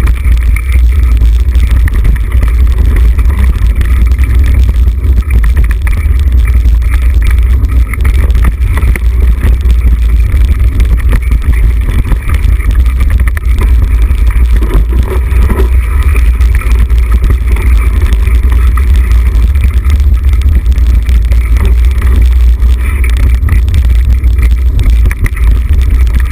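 Wind buffeting a mountain bike rider's helmet or chest camera and the rumble of the bike rolling fast over a dirt trail, heard as a loud, steady low roar.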